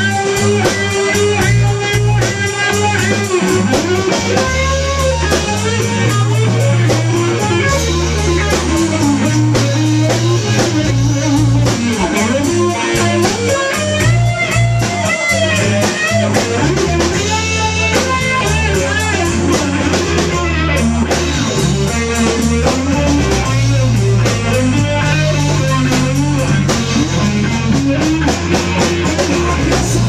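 Live band playing a slow blues: electric guitar lead with bent notes over a drum kit and bass guitar.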